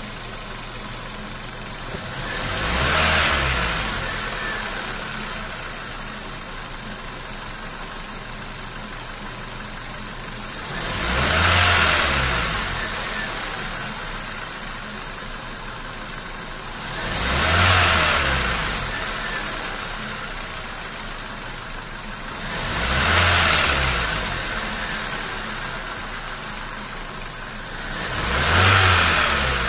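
Kia Cerato's four-cylinder petrol engine idling and revved up five times, each time rising and falling back over a couple of seconds, every five to eight seconds. It is running on cleaning fluid during an injector flush.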